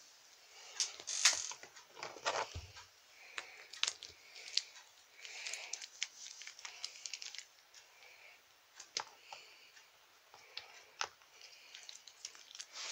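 Irregular clicks, taps and rustling of toy figures and a doll being handled and moved about on a plastic toy play set.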